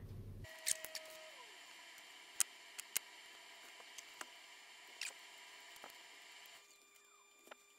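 Scattered faint, sharp clicks and taps, about ten in all, from fingers handling a tiny capacitor and small tools over a circuit board, over quiet room tone.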